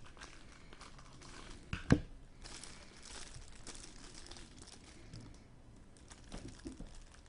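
Packaging being unwrapped by hand to get at a mystery hockey puck: soft crinkling and tearing, with one sharp click about two seconds in.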